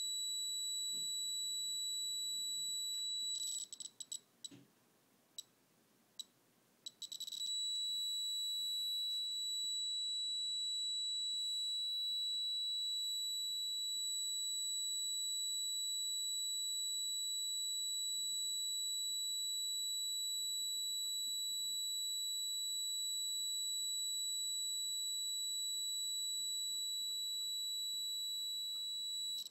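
DIY Arduino Geiger counter sounding a continuous high-pitched electronic tone, its alarm over 1000 counts per minute while the tube reads tens of thousands of counts per minute from a radioactive sample. A few seconds in, the tone breaks off for about four seconds, with a few short chirps, then comes back steady.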